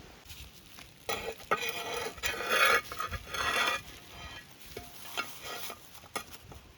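A utensil stirring in a pot, with a few seconds of scratchy strokes and a couple of fainter ones near the end.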